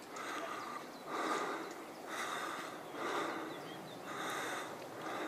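Hard, rhythmic breathing of a hiker climbing a steep trail, about one breath a second.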